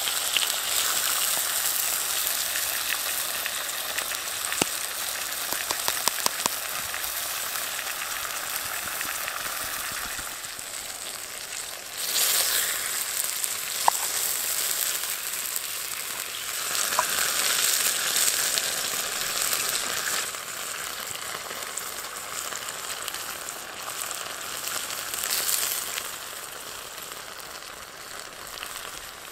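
Slices of meat sizzling in a high-carbon steel frying pan over a wood fire: a steady frying hiss with a few small pops. The sizzle grows louder about twelve seconds in.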